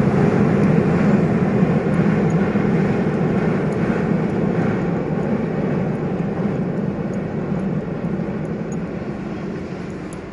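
A passenger train rumbling across a bridge, its noise fading steadily as it moves away.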